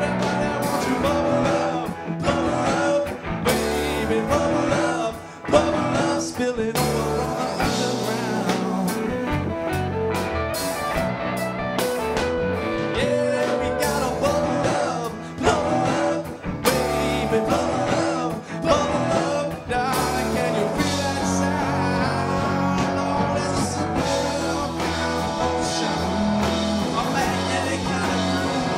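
Live rock band playing: a man singing over electric bass and electric guitar, with keyboard.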